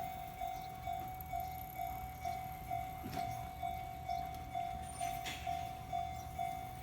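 Japanese railway level-crossing alarm ringing: an electronic crossing bell repeating one steady tone a little over twice a second, the warning that a train is approaching.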